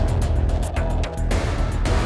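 Outro music with heavy bass and a steady, fast percussive beat.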